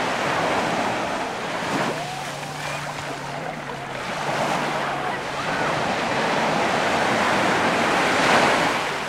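Mediterranean surf breaking and washing up a sand beach: a swell near the start, then a longer one building to its loudest just before the end.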